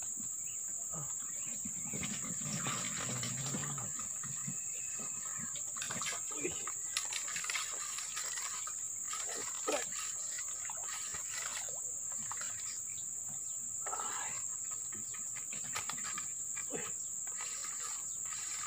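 Insects droning in one steady high-pitched note, with scattered light clicks over it.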